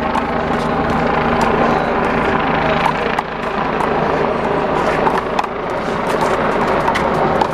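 Steady outdoor traffic noise, with many short sharp clicks or taps scattered irregularly through it.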